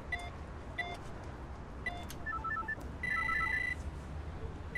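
ELTIS apartment-entry intercom keypad: three short beeps as buttons are pressed, then a quick run of little tones and a long steady beep as the panel calls the flat.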